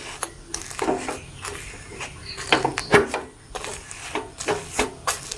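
Scattered light knocks and clicks of kitchen utensils against a pan while bread is cooking on it.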